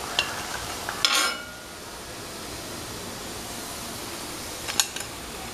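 Steel slotted ladle clinking against a steel kadai and a plate as fried sago fritters are lifted out, over a steady hiss. There are three clinks; the loudest, about a second in, rings briefly.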